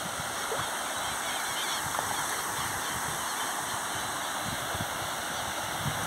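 Small rain-fed waterfall and its stream rushing steadily over rock.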